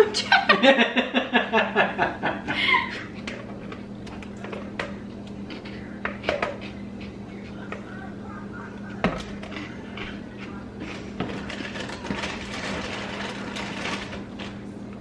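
A person's voice for the first few seconds, then a metal spoon scraping and tapping as a creamy filling is scooped from a plastic tub and spread over a cookie crust in a glass baking dish, with scattered small clicks.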